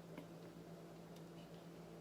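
Near silence: room tone with a low steady hum and a few faint small clicks.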